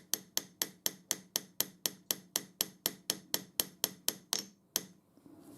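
Rapid, light hammer taps, about four a second, driving a Warco lathe tool slide handle further onto its shaft. The tapping stops a little before five seconds in.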